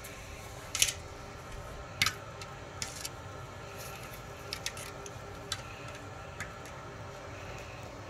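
A handful of short, sharp clicks at irregular intervals over steady faint background noise; the two loudest come about a second in and about two seconds in.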